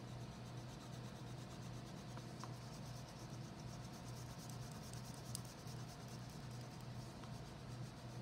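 Yellow wax crayon colouring on paper: a steady, soft, scratchy rubbing of rapid back-and-forth strokes, laying yellow over blue to mix green.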